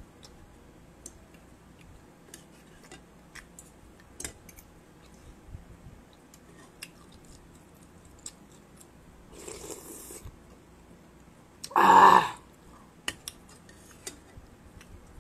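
Eating noodle soup: light clicks of a metal fork and spoon against a bowl, mixed with chewing. A soft breathy sound comes about ten seconds in, and a short loud burst, the loudest sound here, about twelve seconds in.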